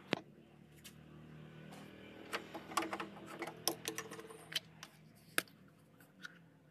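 Sharp plastic clicks and taps as a coolant bottle is handled and its screw cap is twisted off, over a faint steady hum.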